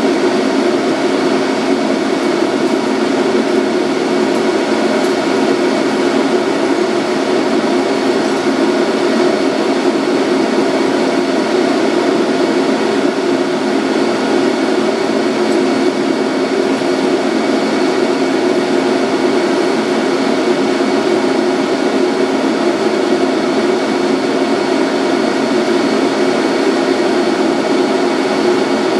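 Steady electrical and ventilation hum inside a Centram low-floor tram's cab while the tram stands still, with a low droning tone and a fainter high whine held at a constant pitch.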